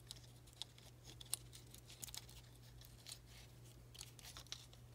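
Faint scattered clicks and light scrapes of a small tool and fingers working a polymer SS80 pistol frame to free the front locking block, over a low steady hum.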